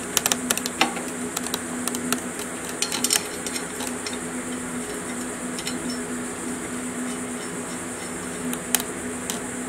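Light metal clinks of steel bolts being handled and set by hand into a clutch pressure plate on a classic Mini flywheel, mostly in the first three seconds and once more near the end, over a steady low hum.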